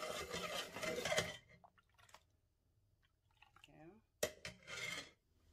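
Metal spoon stirring sorrel drink in a pot, the liquid swishing for about the first second. After a quiet stretch there is a sharp knock about four seconds in, followed by more swishing.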